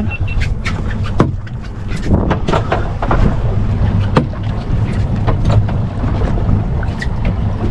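Noise aboard a small fishing boat at sea: a steady low hum under wind buffeting the microphone, with scattered sharp knocks and slaps.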